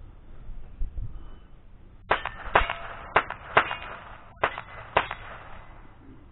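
A string of six quick shots from a Thompson Center .22 rimfire rifle, fired at steel plates in under three seconds: four, a short pause, then two more. Faint ringing of the struck steel follows the shots.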